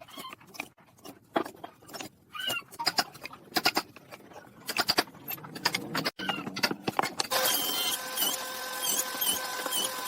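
Quick irregular knocks and taps with a few short squeaks. About seven seconds in, a steady hum with a short chirp repeating two or three times a second takes over.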